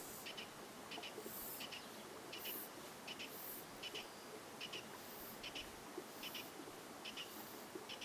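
A bird chirping over and over, a short doubled chirp about every three-quarters of a second, over a faint steady hiss with soft high puffs of noise now and then.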